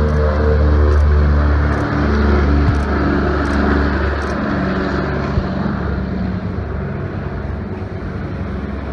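Radial piston engines of a vintage twin-engine bomber at full power, a deep multi-toned drone as it climbs out after takeoff. The drone fades over the second half as the plane flies away.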